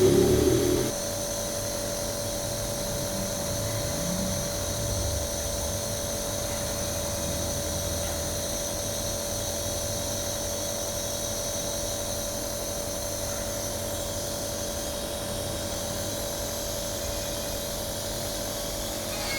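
Nebulizer air compressor running with a steady motor hum and hiss. A brief louder sound comes at the very start.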